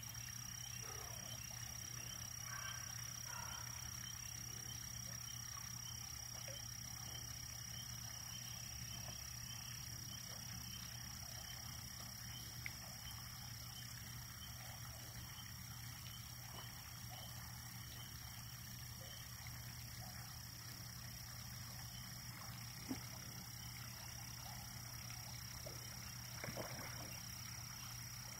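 Faint steady high-pitched chorus of frogs from the pond. Over it come a few soft plops as catfish take feed at the water's surface, one about halfway through and a couple near the end.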